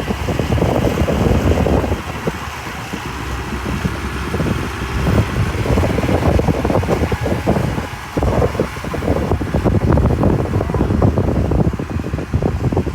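Mitsubishi BD2F bulldozer's diesel engine running while pushing soil, a steady low rumble that swells and dips in loudness.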